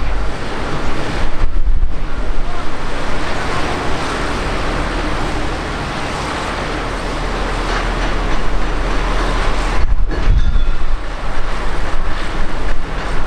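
Jet engines of a twin-engine wide-body airliner running as it rolls along the runway: a steady rushing noise, with wind buffeting the microphone.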